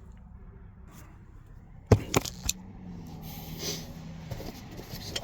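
Handling of a plastic car seat base and its seatbelt hardware: a loud knock about two seconds in, two quick clicks right after it, then light rattling. A faint low hum runs for about a second and a half after the clicks.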